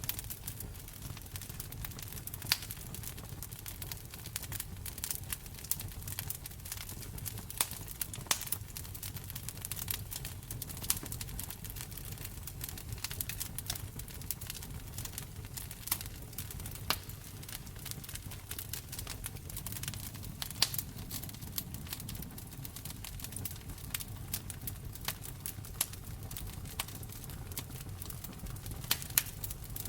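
Fireplace fire crackling: irregular sharp snaps and pops, a few louder than the rest, over a steady low rumble of the burning fire.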